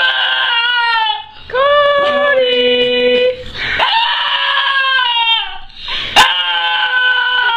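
Puppy whining in long, drawn-out pitched calls, four in a row with short breaks between them, and a sharp click about six seconds in.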